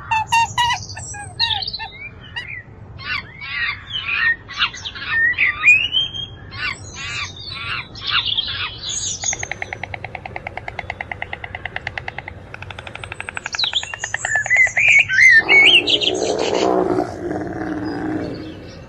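A series of bird chirps and whistles sweeping up and down. In the middle comes a fast, even rattling trill lasting a few seconds. Near the end a harsher, lower animal call takes over.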